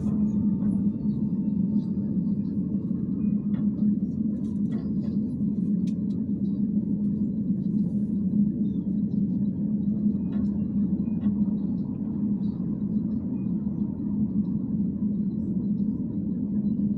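Bogdan T701.10 trolleybus running along, heard from inside the cabin: a steady low rumble with a constant hum under it, and a few light clicks and rattles scattered through.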